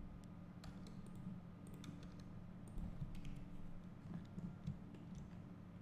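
Faint, irregular clicks of a computer mouse and keyboard as a 3D modelling program is worked, over a steady low hum.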